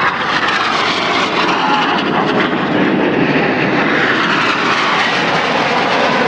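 Red Arrows BAE Hawk jets flying past during the display, a loud, steady jet engine noise whose pitch slowly sweeps as the aircraft pass.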